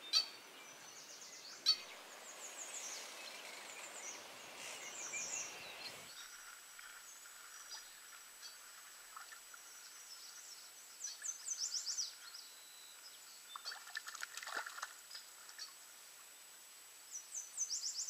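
A small songbird singing a short, high phrase of quick falling notes, repeated several times every few seconds over a faint outdoor background. A faint low hiss cuts out about six seconds in, and a thin steady high tone runs on after it.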